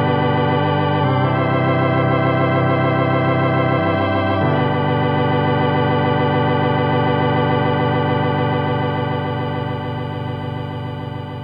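Hammond organ playing the final chords of a gospel hymn. After a few chord changes, a last chord is held from about halfway through and fades out near the end.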